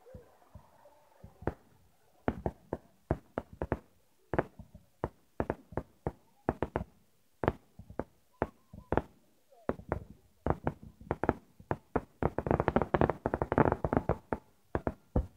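Aerial fireworks shells bursting in a long irregular string of sharp bangs, which thickens into a dense, rapid volley of reports about twelve seconds in and stops near the end.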